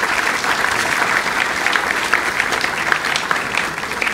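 A large audience applauding: many hands clapping together in a dense, steady patter.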